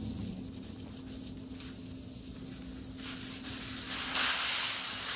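Air hissing out of a 26-inch bicycle tyre through its valve as it is deflated, growing louder about three seconds in and loudest near the end.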